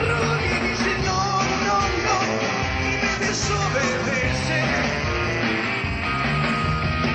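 Rock and roll band playing live, with a bass line stepping between held notes under the rest of the band.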